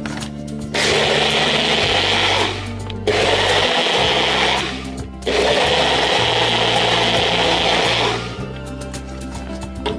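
Personal bullet-style blender running in three bursts, the last about three seconds long, blending green plant stems and water into a frothy green liquid. Background music plays underneath.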